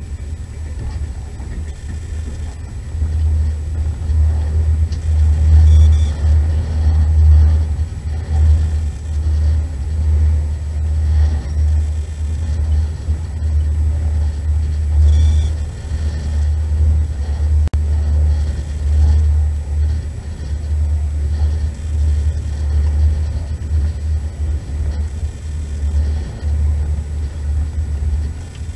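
Passenger train running along the track, a steady low rumble heard from inside the carriage, growing louder about three seconds in.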